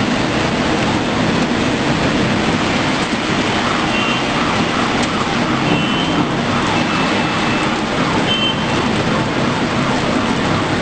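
Steady rumble and hiss of city traffic with light rain during a thunderstorm, with a few short high beeps about four, six, seven and eight seconds in.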